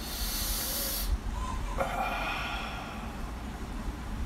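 A man sucks air sharply through his teeth in a hiss, then lets out a breathy exhale about two seconds in: a pain reaction to a burning sensation in a wound on his neck.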